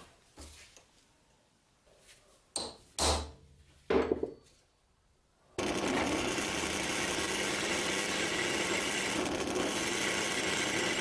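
A few sharp knocks of tools or the workpiece being handled, then about halfway through a workshop power tool, such as a grinder or sander, starts and runs steadily.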